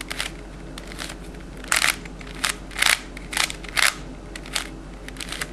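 The plastic layers of a 3x3x5 cuboid twisty puzzle give a string of short clacks, about two a second, as they are turned in quick succession through a corner-swap sequence of moves.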